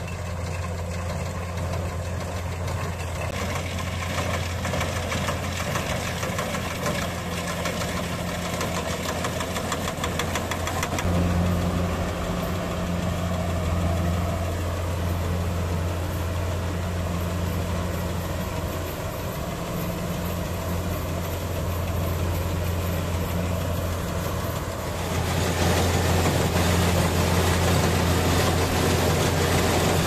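Kubota rice combine harvester running steadily as it cuts and threshes rice: a continuous diesel engine hum with the clatter of the machinery. It grows louder and harsher about 25 seconds in.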